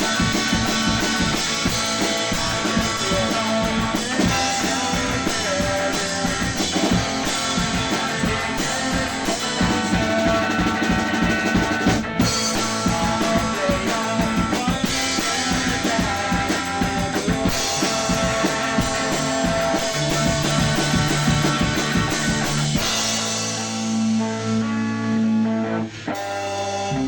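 Instrumental rock section played by a band: guitar over a drum kit. About 23 seconds in the drums drop out, leaving held guitar chords.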